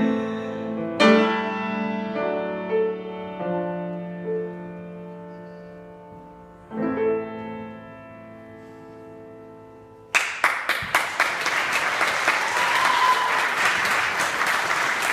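Grand piano playing the closing chords of a song, the last chord left to ring and fade. About ten seconds in, audience applause breaks out and continues.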